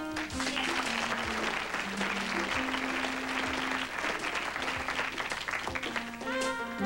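Audience applauding over instrumental backing music; the applause starts about half a second in and dies away near the end as the music's melody comes back to the fore.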